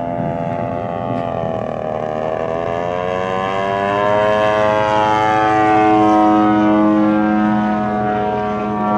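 The DLE 55 single-cylinder two-stroke petrol engine of a large-scale radio-controlled Tiger Moth biplane running in flight. Its pitch dips about two seconds in, then climbs and holds higher, growing louder through the middle.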